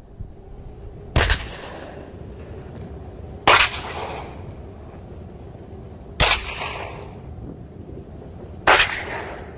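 Towed field-artillery howitzers firing blank salute rounds: four loud shots about two and a half seconds apart, each trailing off in a short echo.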